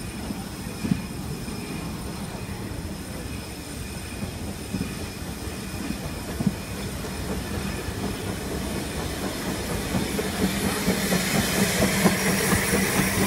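Narrow-gauge railway carriages rolling slowly past, their wheels clicking over the rail joints. Near the end the sound grows louder and steam hisses as the Penrhyn Mainline Hunslet steam locomotive draws level.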